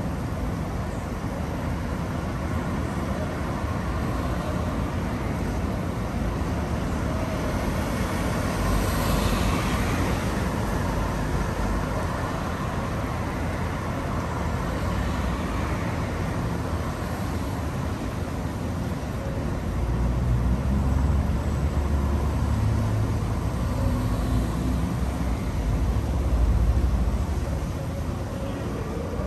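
City road traffic: cars and buses passing steadily. One vehicle passes louder about eight seconds in. A heavy vehicle's low rumble swells in the second half and fades near the end.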